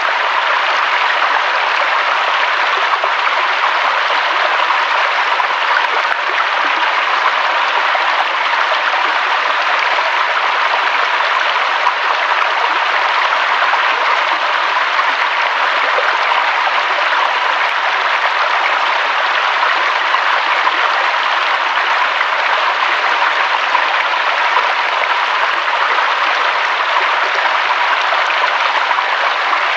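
Flowing water: a loud, steady, even rush with no breaks or distinct splashes.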